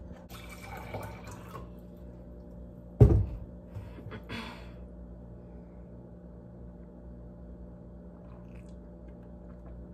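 Water splashing and pouring into a drinking glass, then one sharp thump about three seconds in and a short splash after it. After that only a faint steady hum remains.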